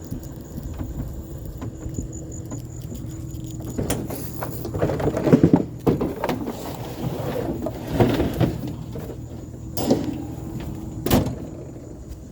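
Vehicle engine idling steadily, with knocks, clatter and bangs of objects being handled and set down: a busy stretch of clatter from about four seconds in and two sharp bangs near the end.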